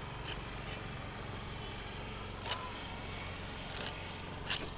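Dry fibrous leaf-base sheath of a palm tree crackling and snapping in a few short, sharp tears as it is pulled away by hand, the loudest about two and a half seconds in and just before the end, over a low steady hum.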